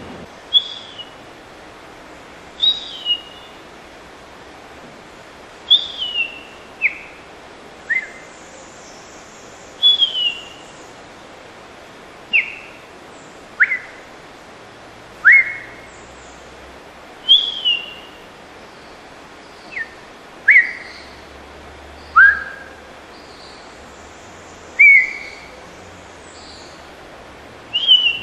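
A man whistling an imitation of the scaly-breasted thrasher's song: a series of short, sharp whistled notes spaced a second or two apart. Some slide down from high, others swoop quickly upward.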